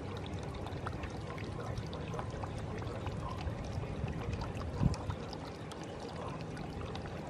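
Steady, low outdoor rumble and noise, broken by one short thump about five seconds in.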